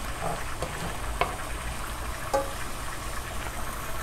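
Onions, scallions and garlic sizzling gently in oil in a non-stick pan as a wooden spoon stirs them, with a couple of light knocks of the spoon against the pan.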